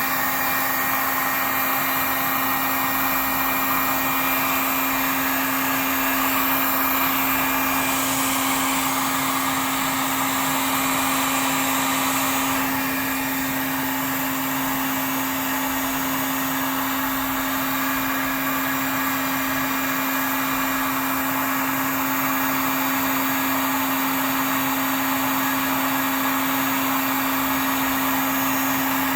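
Electric heat gun running steadily on high, a constant motor-and-fan whir with a steady hum, blowing hot air onto exhaust patch tape to cure its resin. The pitch of the airflow hiss shifts slightly about eight and again about thirteen seconds in.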